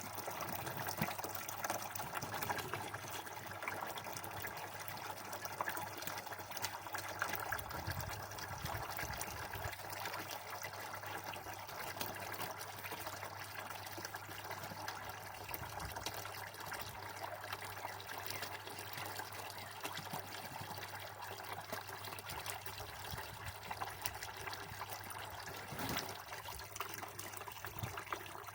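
Water running steadily from a garden hose, trickling and splashing.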